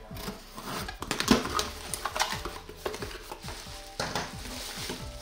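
Crinkling, rustling and knocking of packaging and parts being handled while a security camera is unboxed, with a sharper knock about a second in.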